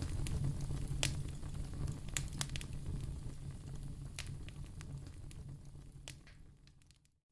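Wood fire in a fireplace crackling, with a handful of sharp pops over a low steady rumble of flame. It fades out near the end.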